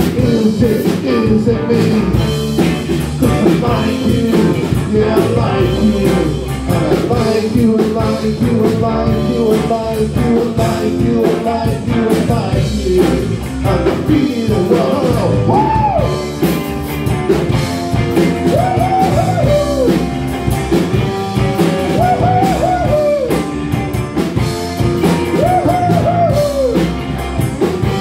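Rock music with drums, guitar and singing. In the second half, a lead line of notes bends up and falls back again and again.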